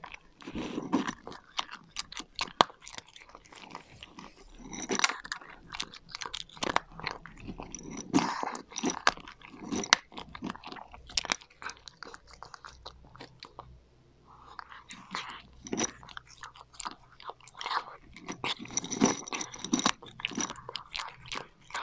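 A cat crunching and chewing dry kibble in quick irregular bites, with a brief pause about two-thirds of the way through.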